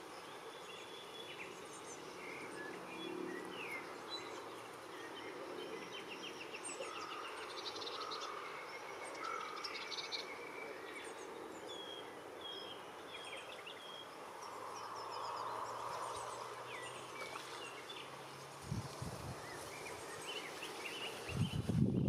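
Small songbirds chirping and trilling, many short calls scattered throughout, over a soft steady background hiss. A couple of low thumps come near the end, and a loud low rumble starts just before it.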